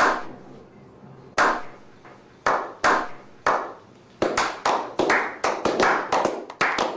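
Hand claps, sharp and echoing: a few single claps about a second apart, then from about four seconds in a quicker run of several claps a second.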